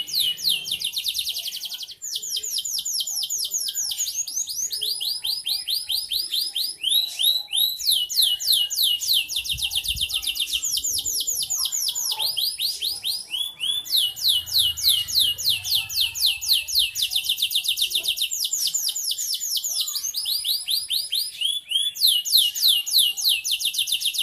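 Domestic canary singing nonstop in full voice: a continuous high song made of fast trills, each a rapid run of the same note repeated many times a second, switching to a new trill every second or two.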